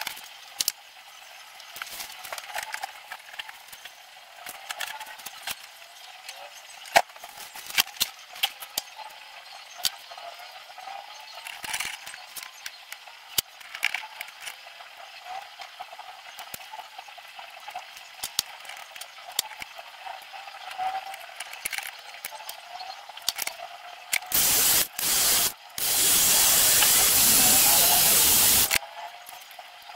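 Small clicks and taps from hands handling wires and electronic parts while a test circuit is put together. About 24 seconds in there are two short bursts of loud hiss, then a steady loud hiss of about three seconds that stops abruptly.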